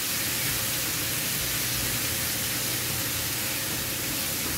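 Mint paste and potato slices frying in hot oil in a pan, sizzling with a steady hiss on medium flame while the raw paste is cooked down.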